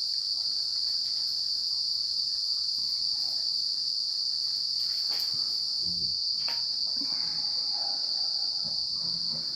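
A steady, high-pitched chorus of insects chirring without a break, typical of crickets or cicadas.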